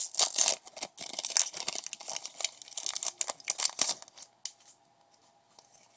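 Foil wrapper of a Pokémon trading-card booster pack crinkling and being torn open by hand: a dense crackle for about four seconds that then dies down.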